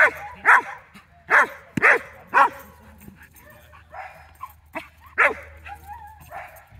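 Young Bouvier des Ardennes barking excitedly at a bite-work helper: five loud barks in quick succession in the first two and a half seconds, then one more about five seconds in, with fainter sounds between.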